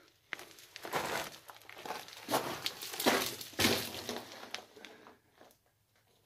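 Irregular crunching and scraping of loose crushed-rock gravel underfoot as someone moves into a narrow rock-cut tunnel. The crunches are strongest in the middle and die away near the end.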